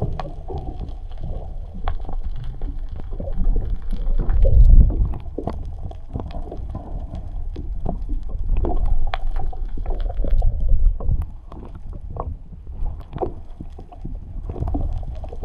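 Water slopping and gurgling around a small boat: a low rumble with many small clicks and knocks, swelling loudest about five seconds in.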